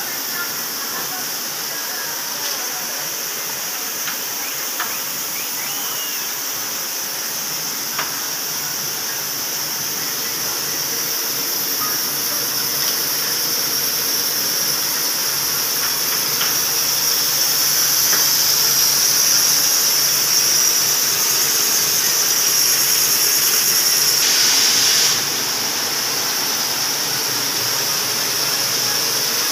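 Carton pasting machine (folder-gluer) running, a steady high-pitched whine and hiss with a few light ticks. It grows louder past the middle and drops suddenly about four seconds before the end.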